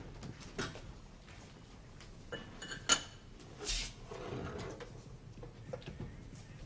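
Light clinks and knocks of china cups, saucers and silverware being handled, the loudest a single sharp ringing clink about three seconds in.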